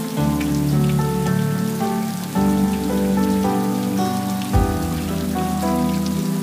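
Steady rain falling, over slow background music of held chords and a low bass note that changes every second or so. There is a brief low thump about two-thirds of the way through.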